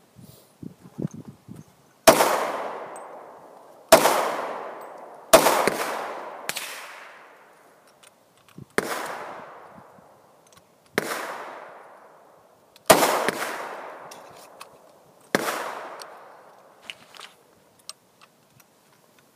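A .40 calibre pistol fired eight times at an uneven pace, each shot a sharp crack followed by a long fading echo. A few faint clicks come before the first shot.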